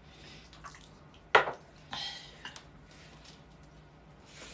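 Quiet mealtime sounds at a dinner table: one sharp click about one and a half seconds in, a short breathy rustle just after, and a few faint small clicks while food is wrapped and eaten.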